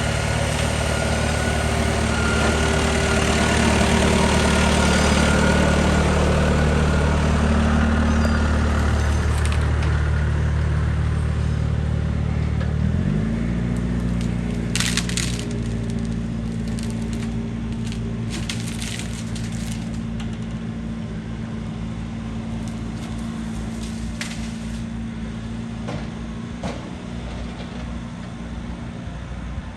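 Case CX80C excavator's diesel engine working hard under load, its note rising and easing about halfway through, while a tree gives way with several sharp cracks and splintering snaps of wood.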